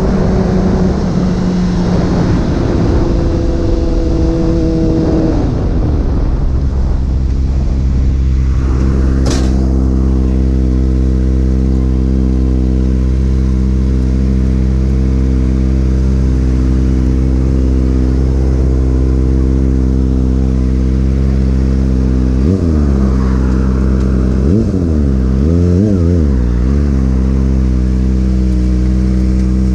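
Motorcycle engine running at a steady speed during a ride, with wind noise over the first few seconds. There is one sharp click about nine seconds in, and near the end the engine note dips and comes back up briefly a few times.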